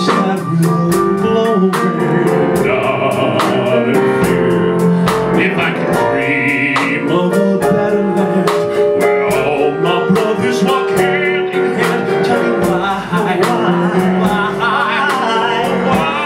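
Two men singing a duet into microphones over instrumental accompaniment with a steady beat.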